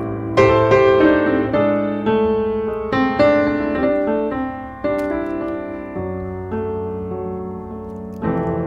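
Background piano music, with notes and chords struck every second or so and fading between strikes.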